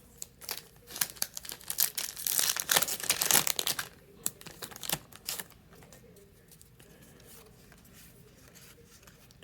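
Foil Yu-Gi-Oh! booster pack wrapper being crinkled and torn open, a run of sharp crackles and rips that stops about five seconds in.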